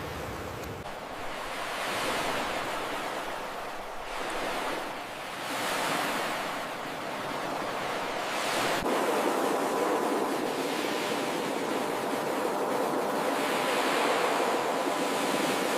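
Ocean surf washing onto a beach, a steady rush of water that swells with each breaking wave every few seconds.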